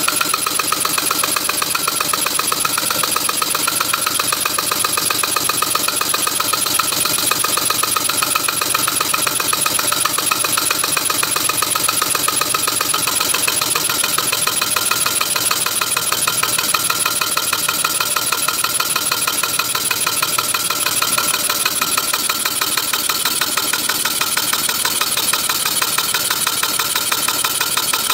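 Small model three-cylinder radial engine running steadily on compressed air, a fast, even chuffing of air exhaust from its cylinders.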